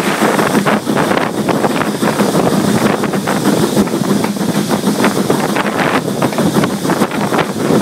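Wind buffeting the microphone at an open carriage window, over the steady running noise of a steam locomotive and its train on the move.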